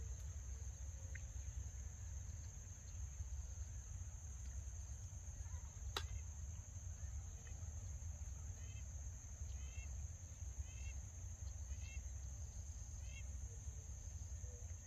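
Outdoor wetland ambience: a steady high-pitched insect drone over a low rumble. Short chirping calls repeat about once a second in the second half, and there is a single sharp click about six seconds in.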